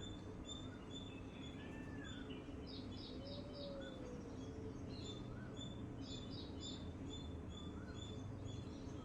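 Several songbirds calling together over a steady background noise: short high chirps repeated about twice a second, two quick runs of four notes, and shorter slurred whistles lower down, with one longer low slurred note a few seconds in.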